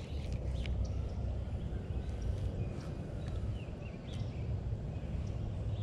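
Wind rumbling on the microphone, with a few faint clicks.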